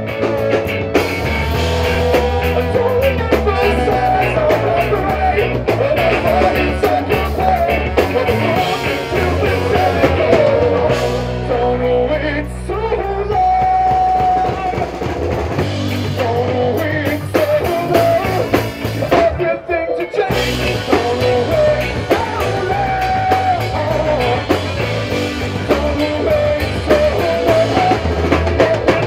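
Live rock band playing: a singer over a drum kit, electric guitar and bass, with saxophone and trombone in the line-up.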